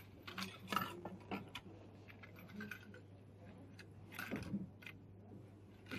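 Light plastic clicks and taps of hamster water bottles being handled, several short knocks, the loudest a little past four seconds in.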